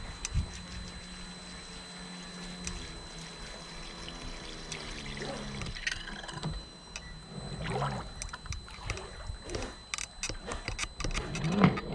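Water splashing and trickling as a small radio-controlled boat motors in toward its trailer at the ramp, with the steady hum of its small motor in the first half. A few short, pitch-bending cries break in, the loudest right at the end.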